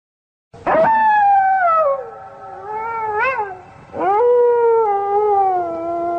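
Long drawn-out wailing cries like a cat's yowl. They start suddenly out of dead silence: one long cry sliding down in pitch, a short rising-and-falling yelp about three seconds in, then another cry that swoops up and slowly falls.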